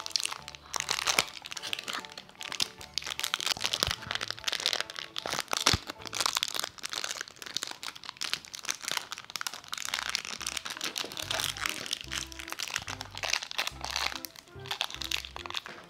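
Plastic snack wrappers crinkling and crackling as they are worked open by hand, with background music carrying low bass notes under it.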